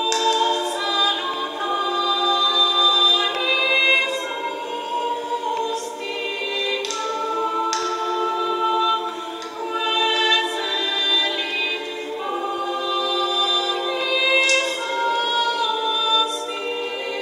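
Choir singing a cappella in slow, held notes.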